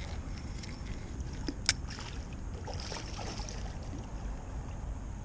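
Water splashing and sloshing as a hooked carp is fought toward the bank in a shallow creek, over a steady low rumble, with one sharp click about a second and a half in.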